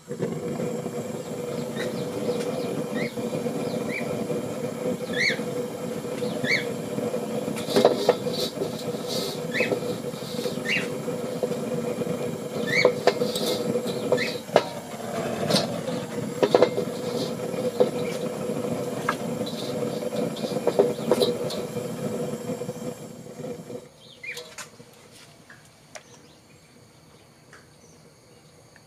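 Gas wok burner lit under an empty wok, running with a steady rushing noise as the wok preheats, then cut back sharply about 24 seconds in. Birds chirp in the background.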